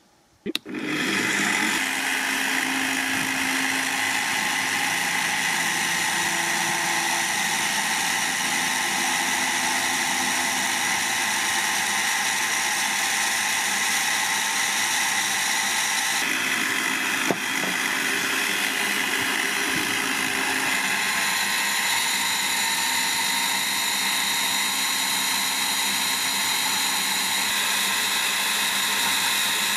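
Parkside PTBMOD 710 B2 bench pillar drill switched on about half a second in, its 710 W motor running steadily at about 1800 rpm while a 4 mm bit drills a pilot hole in a steel bar. There is a single sharp click about 17 seconds in.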